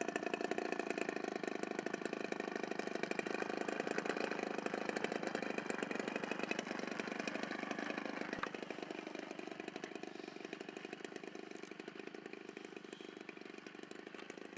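Radio-controlled model airplane's combustion engine running at high revs in flight, a steady buzzing note that grows fainter over the second half as the plane moves away.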